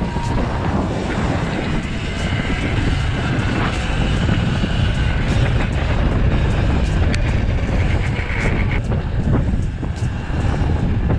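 Wind rushing and buffeting over a helmet-mounted action-camera microphone while riding a 72-volt Sur-Ron electric dirt bike, a steady, heavy low rumble of wind noise.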